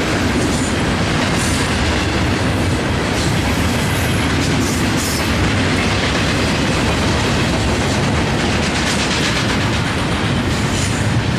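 Double-stack intermodal train's well cars rolling past at speed: a steady, loud rumble of steel wheels on rail with scattered clicks of the wheels.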